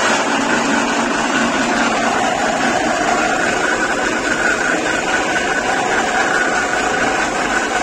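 KL180 flat-die animal feed pellet mill with four rollers running steadily while pressing oat husk and oat powder into pellets: a loud, even machine noise with a constant whine.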